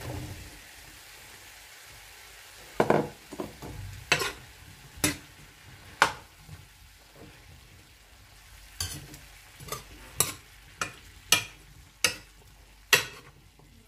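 Diced patola cubes tipped into a nonstick frying pan with a soft thud, then a spatula stirring them into the sautéing chicken: roughly a dozen sharp clacks of spatula on pan in two runs, over a faint sizzle.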